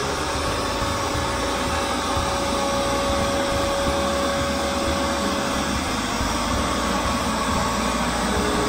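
Shop vacuum running steadily with a random orbital sander working over the fiberglass keel surface, the vac drawing the sanding dust through a cyclone separator.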